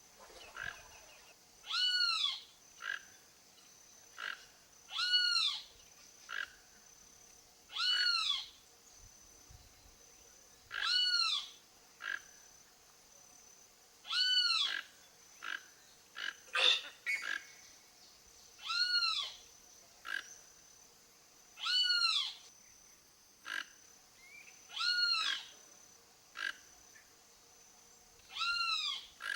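Toco toucan calling: a croaking call repeated about every three seconds, with shorter, fainter notes in between.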